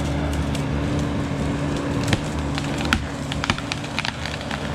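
Bobcat E42 mini excavator's diesel engine running steadily while its arm and bucket push into a tree, with wood cracking and snapping repeatedly, most of it from about two seconds in.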